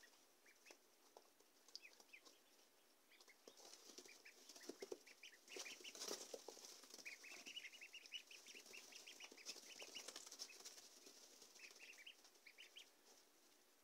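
Week-old ducklings peeping faintly in short high cheeps that come in runs, over a rustle of wood shavings as they scurry about the brooder floor; the rustling is busiest in the middle stretch.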